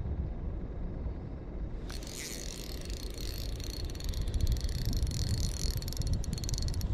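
Wind on the microphone throughout. From about two seconds in, a spinning reel is cranked to wind in line, a fast, even ticking whir that thickens toward the end.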